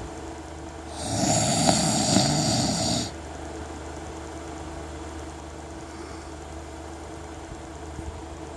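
A man snoring: one loud, rattling snore about two seconds long, starting about a second in, over a steady low background hum.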